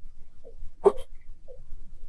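Frozen lake ice on Lake Kussharo cracking under stress as the ice sheet sets: one sharp crack about a second in, with a short low twang and small faint pops before and after it.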